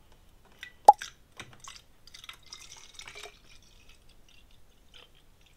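Water poured from a plastic gallon jug into a small spray bottle: a sharp plink about a second in, a few small drips and clicks, then a light trickle of pouring for about a second.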